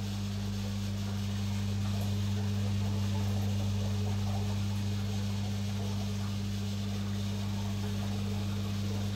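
Steady low mains-frequency hum from running aquarium equipment, over a faint even hiss of moving water.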